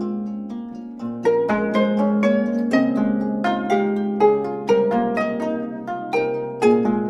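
A gayageum ensemble of four Korean zithers playing plucked notes and chords that ring on. The music is softer for the first second, then a steady run of plucked notes sets in with several stronger accents.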